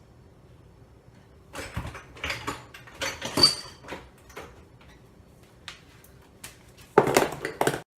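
Hard objects being handled and set down: a run of knocks and clatters, a few single clicks, then a louder burst of clatter near the end that cuts off suddenly.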